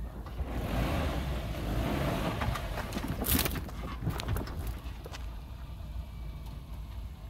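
Suzuki Jimny crawling over a steep dirt mound, its engine a low steady rumble under a rush of tyre and body noise for the first few seconds. A sharp knock comes about three seconds in, then a few light clicks.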